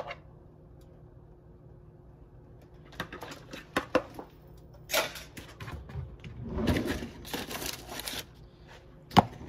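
Handling sounds: a few scattered clicks and knocks, then about two seconds of crinkly rustling as plastic wrap is pulled and handled, and a single sharp knock near the end.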